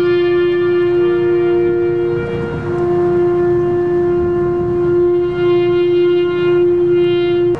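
Wind-instrument music playing long held notes, several sounding together as chords that change a few times, then cutting off abruptly at the end.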